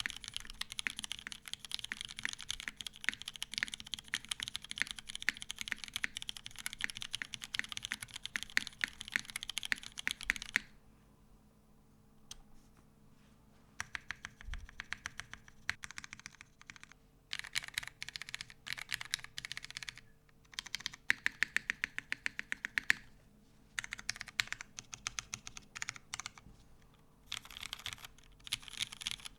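Typing on a TGR 910 CE mechanical keyboard with lubed vintage Cherry MX Black linear switches, a full brass plate and GMK keycaps. Fast continuous typing runs for about ten seconds, stops for about three seconds, then comes back in short bursts of keystrokes separated by brief pauses.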